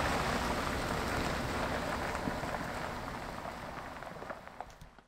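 Pickup truck pulling away, its engine and tyre noise fading steadily into the distance, with a few faint crunches.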